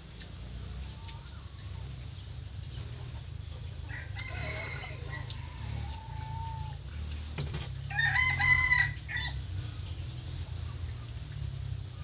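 A rooster crowing: a shorter call about four seconds in, then a loud crow lasting about a second at around eight seconds in, over a steady low rumble.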